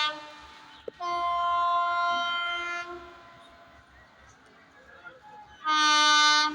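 Railway locomotive horn: a blast cuts off at the start, a steady blast of about two seconds sounds a second in, and a shorter, slightly lower blast comes near the end, over the low rumble of the train.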